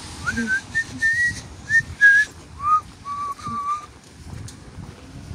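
A person whistling a tune: a string of clear held notes joined by slides, pitched higher at first and dropping to lower notes about halfway through.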